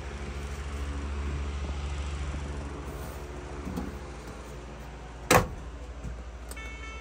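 Maytag Bravos MCT dryer door shut with a single sharp bang about five seconds in, after a few seconds of bedding rustling over a steady low hum. Near the end the dryer's control panel beeps as its cycle dial is turned.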